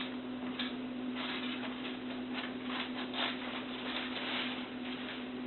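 Golden retriever puppies scuffling and pattering about, a run of soft irregular rustles and scrapes, over a steady low hum.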